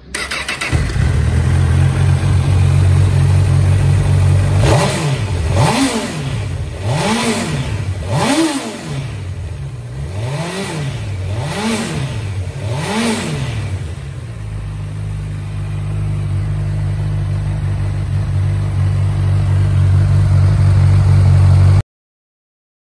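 Honda CB1000R inline-four motorcycle engine idling, blipped up in a quick run of about six or seven short revs that rise and fall in pitch, then idling again. It cuts off suddenly near the end.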